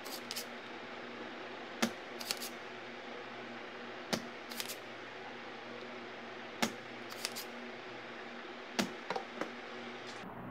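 Spring-loaded desoldering pump snapping as it sucks solder off the flyback transformer's pins: four sharp snaps about two seconds apart, each followed by a few fainter clicks as the plunger is pushed back to reset. A steady low hum runs underneath.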